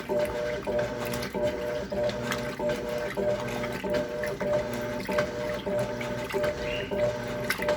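Electrolux LTC10 top-loading washing machine agitating a full load in water: the motor hum starts and stops in short repeating strokes as the agitator turns back and forth, with water sloshing.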